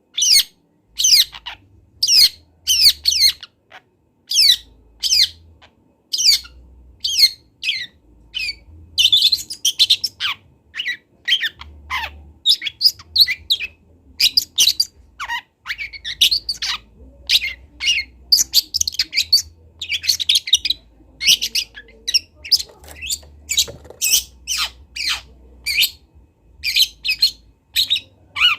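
Juvenile long-tailed shrike (cendet trotol) practising its song: a fast, irregular string of short, sharp, high notes, many sweeping down in pitch, broken by denser clusters of jumbled notes.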